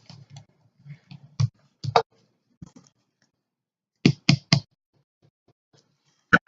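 Sharp clicks and knocks of metal tooling being handled as the hydraulic crimper is readied: a few light clicks, a louder knock about two seconds in, three quick clicks about four seconds in, and one more near the end.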